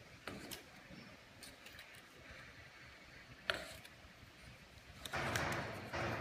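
Paper cups with fold-out paper handles being handled on a table: a few light taps, one sharp click, then about a second of paper rustling and scraping near the end.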